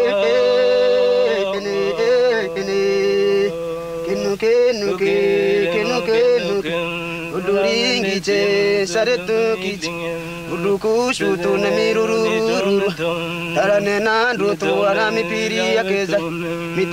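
Music of chanted singing over a steady low drone, with long held notes at first and then a more broken, rhythmic chant.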